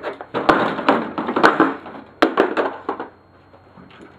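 Several sharp knocks and clattering of lawnmower parts being handled and tossed aside during teardown, dying down about three seconds in.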